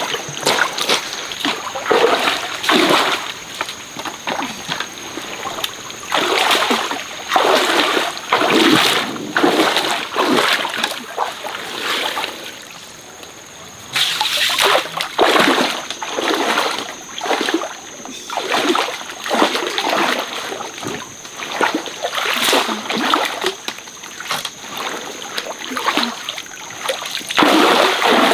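Water splashing again and again in uneven bursts every second or two, with a brief lull about halfway through. A steady high-pitched whine runs behind it.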